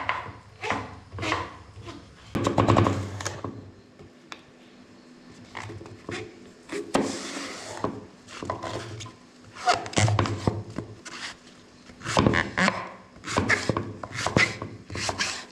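Kitchen knife cutting long brinjals on a board, a series of irregular short knocks and taps.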